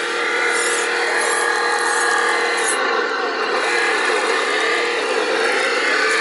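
Electric motor and gearbox of a radio-controlled scale Land Rover Defender 90 whining under load as it churns through deep mud. The whine is steady at first, then wavers up and down in pitch from about halfway through as the wheels spin and bite.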